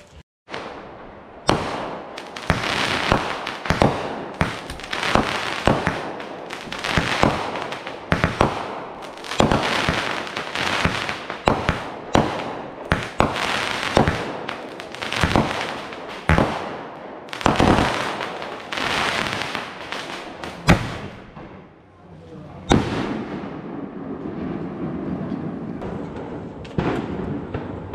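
Consumer firework cake firing a long run of aerial shots, roughly one or two a second for about twenty seconds, each with a sharp report and a crackling burst. After a short pause there is one more report, and then a lower, steady background.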